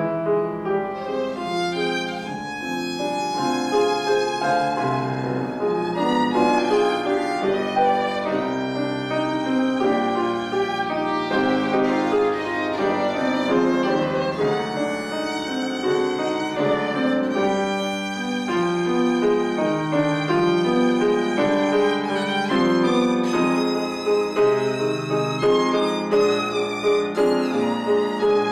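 Violin and grand piano playing live together, the violin carrying the melody over the piano accompaniment.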